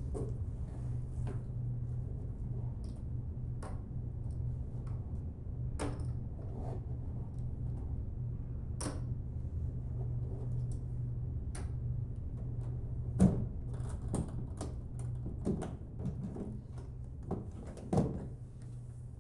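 Poker chips and cash handled on a table: scattered light clicks and taps, with two louder knocks about 13 and 18 seconds in, over a steady low hum.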